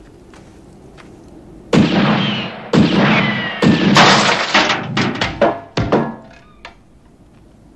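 A series of about six loud crashing impacts, each cutting in suddenly and trailing off, the first two carrying a falling whistling tone; after the last one the background drops back to quiet.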